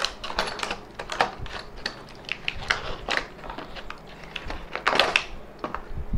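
Clear plastic blister pack of a two-way oil filter wrench being cut and pulled apart by hand, the stiff plastic giving an irregular run of sharp crackles and clicks.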